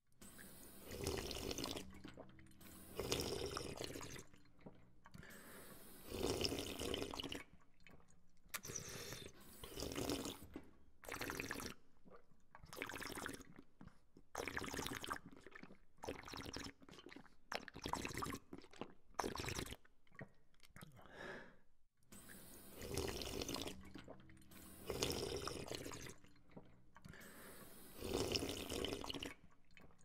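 A person drinking from a water fountain: splashing water and sipping come in short bursts about every second or two, with brief pauses between.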